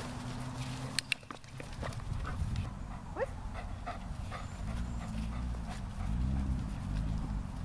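Young German Shepherd panting as it heels alongside its handler, the breaths settling into a quick even rhythm in the second half.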